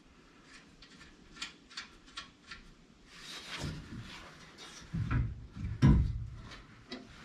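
Tire-carrier bumper being shifted and knocked into place on the Jeep's frame. There are a few light clicks, then a scraping rush, then two heavy clunks about a second apart and another near the end.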